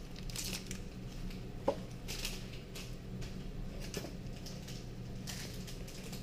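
Foil booster pack wrapper crinkling and trading cards being handled, in short irregular rustles, with one sharp click about a second and a half in. A steady low hum sits underneath.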